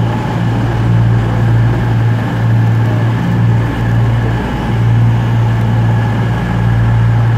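CrossCountry diesel multiple unit moving slowly along the platform, its underfloor diesel engines giving a steady low hum with rumble and hiss above it.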